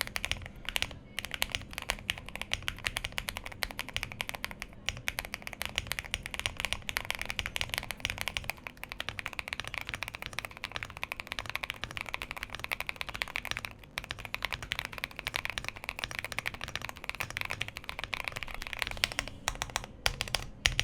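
Fast, continuous typing on a modded Monsgeek M3W aluminium TKL mechanical keyboard fitted with clicky-free non-silent switches: a dense, unbroken run of keystroke clacks.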